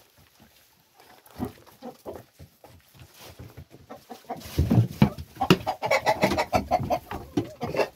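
Backyard chickens clucking, with knocks and rustling mixed in; it grows much louder and busier about halfway through.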